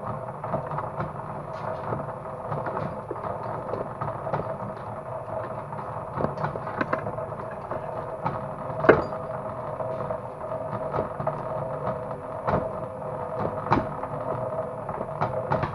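Homemade cable stripping machine running: a steady motor hum with irregular clicks and knocks, the loudest about nine seconds in.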